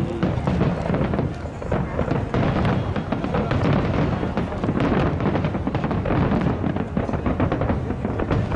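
Fireworks bursting in rapid succession, a dense run of bangs and crackles, with music playing loudly alongside.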